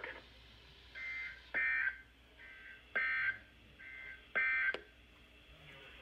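Three short bursts of Emergency Alert System SAME end-of-message data tones, a rough two-pitch digital buzz, about a second and a half apart, each preceded by a fainter copy. They mark the end of the severe thunderstorm warning message.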